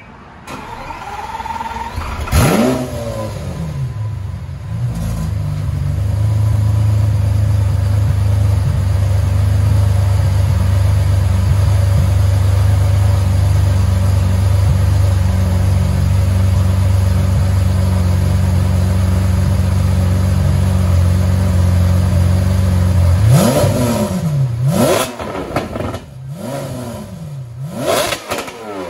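Lamborghini Aventador 6.5-litre V12 fitted with aftermarket test pipes and a cat-back exhaust. The starter cranks it, and it catches with a loud flare rev about two seconds in. It then settles into a steady idle and ends with four quick throttle blips near the end.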